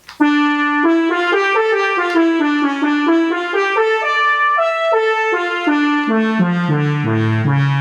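Synthesized brass voice ("Synth Brass 2") of an Odisei Travel Sax 2 digital wind instrument, playing a melodic phrase of bright sustained notes that steps down into low notes near the end.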